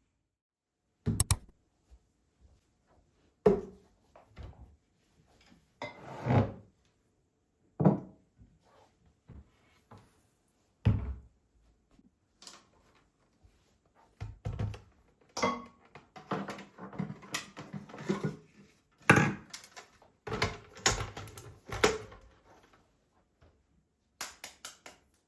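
Household objects being handled and set down: single knocks and thunks a few seconds apart, then a busier run of clattering and handling noise from about halfway through, with a few quick clicks near the end.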